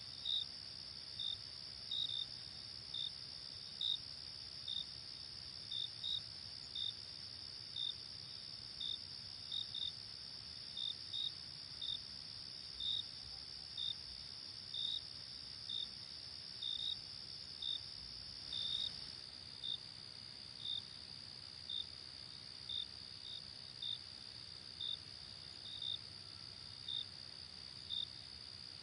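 Night chorus of crickets: a steady high trill with short single chirps about once a second, unevenly spaced, on top.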